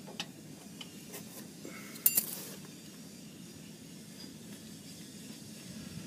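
Hand tools clicking and clinking against metal parts during starter work under an air-cooled VW bus: a few light ticks, then one sharp, ringing metal clink about two seconds in.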